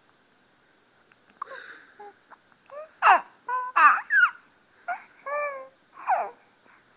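Six-week-old baby cooing in a string of short, high-pitched vocal sounds that slide up and down in pitch, the loudest about three and four seconds in.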